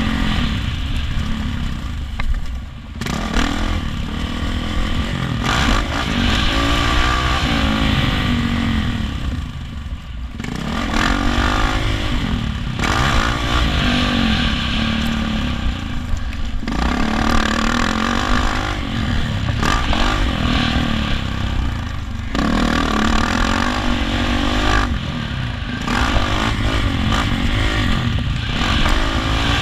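Yamaha 450 four-stroke motocross bike engine revving hard and backing off again and again while being ridden. Its pitch rises and falls with each burst of throttle, with brief lulls a few times. Wind and rumble on the helmet-mounted microphone sit underneath.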